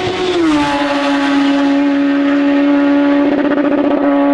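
Race car coming up the hill towards the crest, its engine heard more clearly from about three seconds in. Over it runs a loud, long, steady droning tone that dips slightly in pitch about half a second in and then holds flat.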